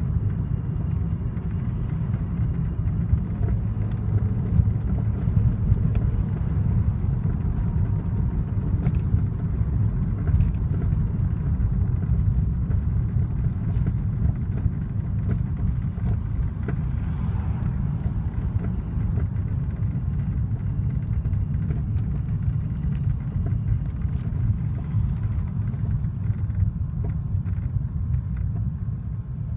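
Inside a moving car's cabin: steady road and engine rumble, with scattered short knocks and rattles from the body and interior trim. These are the car's knocks and squeaks that it is being recorded for.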